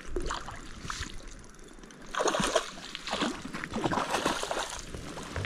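Hooked trout splashing at the surface of a small stream as it is played in to a landing net, in irregular bursts from about two seconds in.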